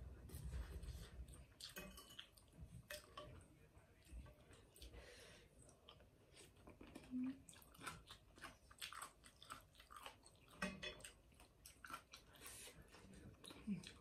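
Faint mouth sounds of a person eating soft rice noodles in broth: wet chewing with small smacks and clicks.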